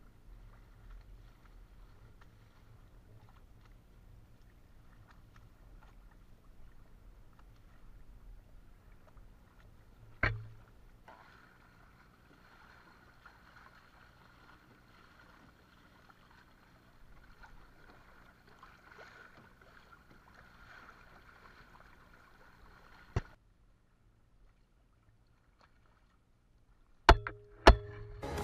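Faint water and wind noise from a sailing kayak moving over the sea, with a sharp knock about ten seconds in and another a few seconds before the end. It falls almost silent, then two loud clicks come just before the end.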